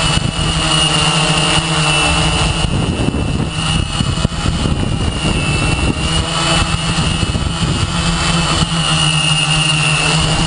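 Quadcopter's electric motors and propellers running with a steady, loud buzzing whine, heard up close from a camera on the quadcopter itself as it hovers and descends to land.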